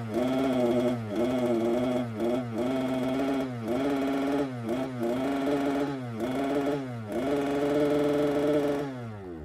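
Small two-stroke petrol engine of a jetsurf motorised surfboard running while held at the dock, revved in repeated blips: the pitch dips and climbs back about once a second, then holds for a longer rev near the end.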